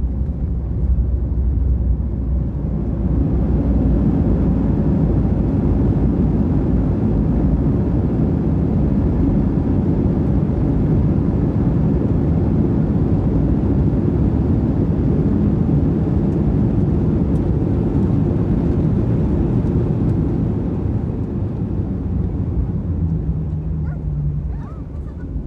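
Airliner cabin noise during landing: a loud, steady rush of engine and airflow noise swells about two seconds in and eases off near the end, typical of touchdown and the landing rollout.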